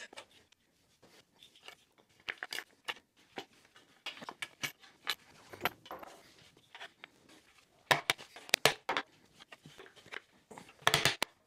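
Wooden pieces being handled and set down on a folding workbench: scattered clicks and knocks, with the loudest quick clusters about eight seconds in and again near the end.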